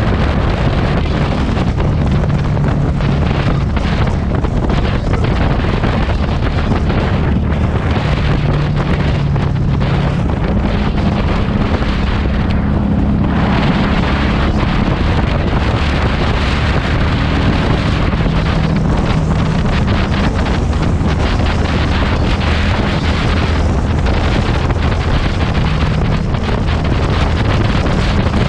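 Heavy wind buffeting an action-camera microphone on a moving motorcycle, over the exhaust of a Harley-Davidson Street 500 V-twin running at riding speed. The engine's pitch shifts up and down with throttle and gear changes, and the wind eases briefly about halfway through.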